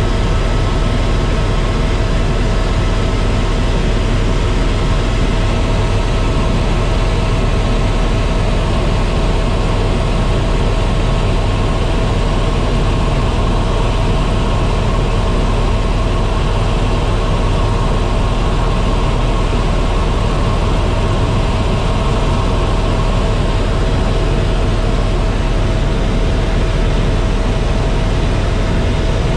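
Helicopter in flight heard from inside the cabin: a loud, unbroken drone of rotor and turbine with a faint steady whine over it.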